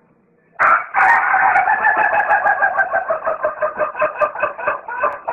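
Rooster crowing: one very long crow that starts about half a second in and is held to the end, with a fast, even warble running through it.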